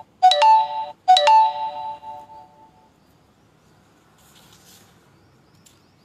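A bell-like chime struck twice, about a second apart near the start, each stroke ringing out and fading over a second or two; faint room noise follows.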